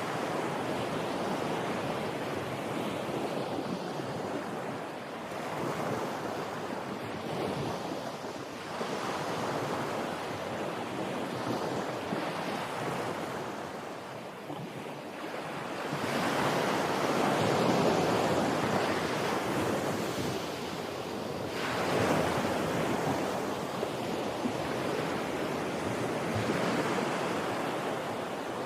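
Ocean waves breaking on a beach: a steady wash of surf that swells and eases every few seconds, with the largest breakers about two-thirds of the way through. Some wind is also heard.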